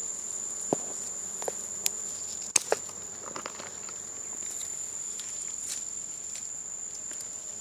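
An insect's steady high-pitched trill runs throughout, over a few sharp snaps and rustles of dry twigs being pushed aside; the loudest snaps come in a quick pair about two and a half seconds in.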